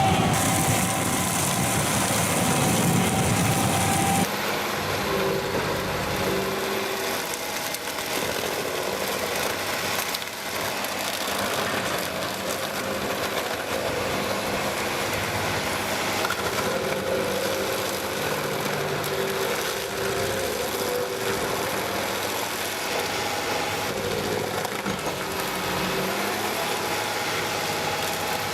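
Engine of a working machine running steadily, with an abrupt change in its sound about four seconds in.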